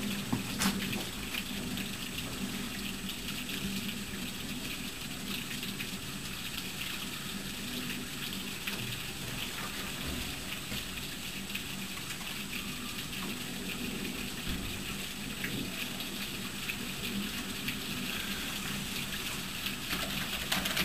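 Steady thunderstorm rain: an even hiss of rainfall with many small drop clicks.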